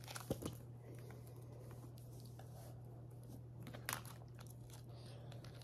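Plastic action figures being handled and pressed together: faint rustling with a few sharp clicks just after the start and another about four seconds in.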